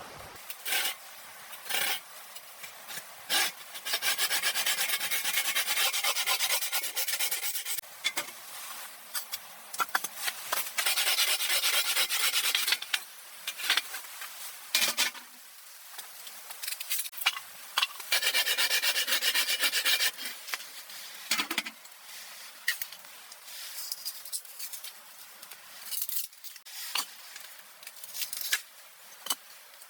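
Rasping, scraping strokes in three long bouts, with short knocks and clicks in between.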